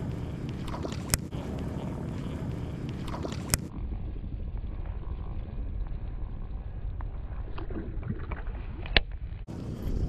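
Steady low rumble of a small boat on the water, broken by a few sharp knocks: about a second in, about three and a half seconds in, and near the end.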